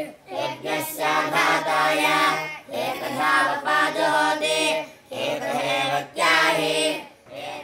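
Boys' voices chanting Vedic verses together in unison, on a few held pitches, in phrases of about two seconds with short pauses for breath.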